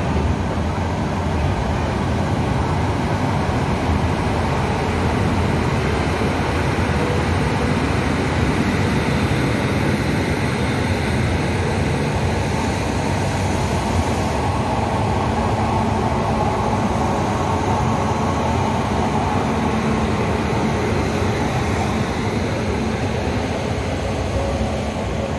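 Passenger train running along the track, a steady rumble of wheels on the rails.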